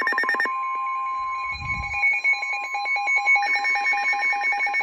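Weather radio alert tones for a tornado warning: rapid pulsing alarm beeps throughout, with a steady tone that sounds from about half a second in to about three seconds in.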